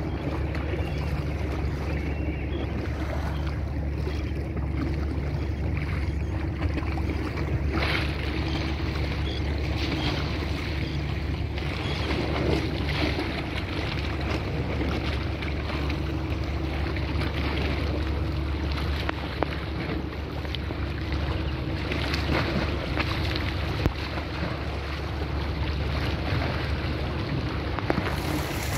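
A boat engine drones steadily and low, with wind buffeting the microphone and waves washing.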